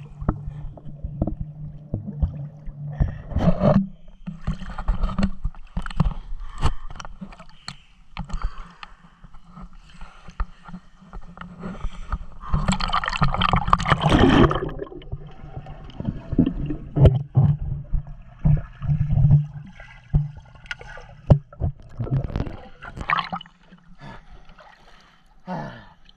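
Swimming-pool water splashing and sloshing right against a waterproof action camera, in a string of short splashes. About halfway through comes a longer, louder gurgling rush as the camera goes under the surface.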